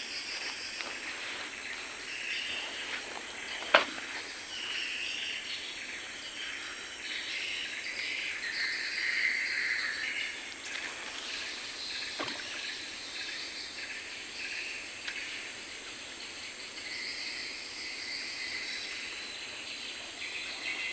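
Riverside ambience of insects and birds calling steadily, with a sharp click about four seconds in and a fainter one around twelve seconds.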